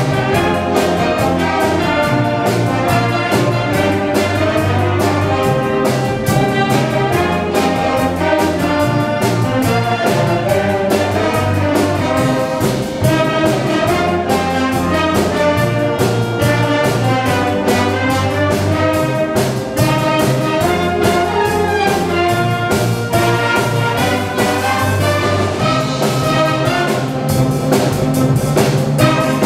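Concert wind band of woodwinds, saxophones, brass and tuba playing a band arrangement of a pop song, melody over sustained bass notes and a steady percussion beat.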